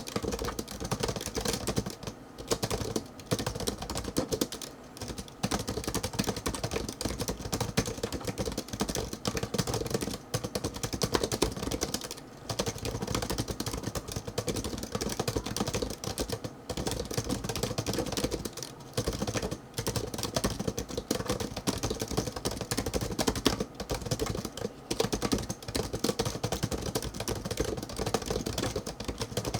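ABKO TOS100 slim pentagraph (scissor-switch) keyboard being typed on fast and continuously, a dense run of light key clicks broken by brief pauses every few seconds.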